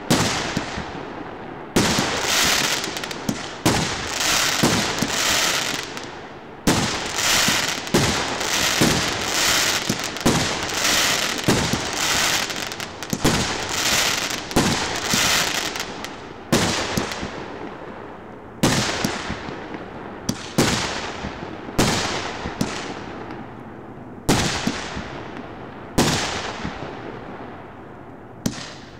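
A 100-shot, 1.5-inch consumer fireworks cake (TT-0314 «Фейерверк 100») firing: aerial shell bursts one after another, about one to two seconds apart. Each is a sharp bang that fades into crackling and hiss, and the crackling is densest in the first half.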